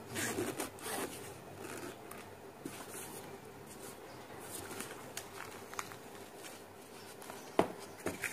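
Plastic packaging rustling, then the zipper of a padded hard-drive carry case being drawn open around its edge as a faint rasping, with two or three sharp taps near the end.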